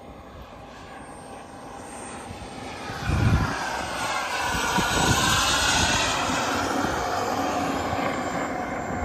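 Tomahawk F-86 Sabre model jet's turbine engine in a flyby: the rushing jet noise grows louder over the first few seconds, is loudest about five to six seconds in with a sweeping, phasing hiss as it passes, then holds on. A brief low rumble about three seconds in.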